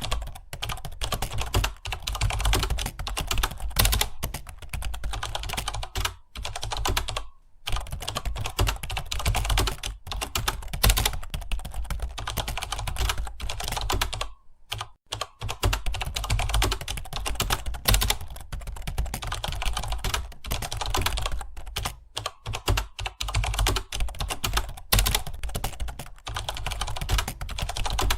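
Computer keyboard being typed on fast and continuously, a dense stream of key clicks with brief pauses around a quarter and halfway through.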